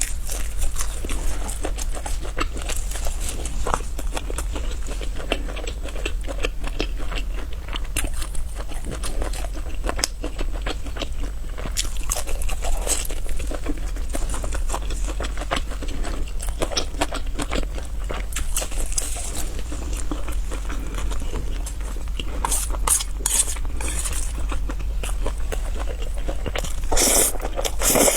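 Close-miked eating: biting and chewing with irregular crunches and small crackling clicks, a louder cluster of crunches near the end, over a steady low hum.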